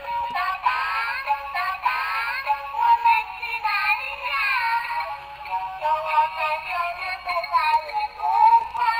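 A blue pig rattle toy's small speaker playing an electronic sung children's tune in a synthesized voice. It sounds thin and tinny, with almost no bass.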